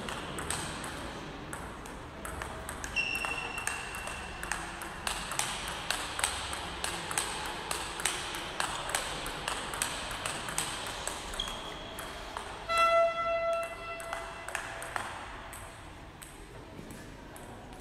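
Table tennis rally: the ball clicking off the bats and table, about two hits a second, stopping near the end. A loud squeak sounds about two-thirds of the way through, and a shorter, higher one about three seconds in.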